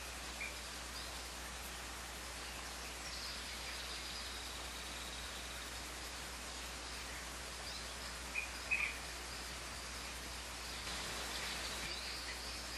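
Steady outdoor background hiss with faint, scattered bird chirps, and two short louder chirps a little past the middle.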